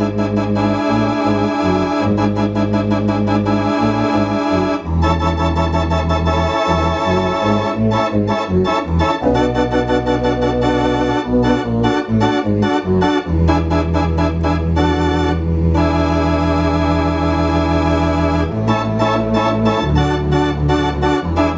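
Allen Digital Theatre Compact electronic theatre organ playing sustained chords over held low bass notes, changing chord every second or two, with a wavering tremulant in the tone.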